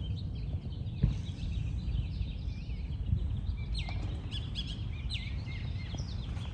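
Birds chirping in repeated short, gliding calls over a steady low background rumble, with a sharp thump about a second in.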